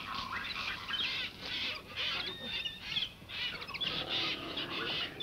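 Jungle birds calling, many quick, repeated high chirps overlapping one another.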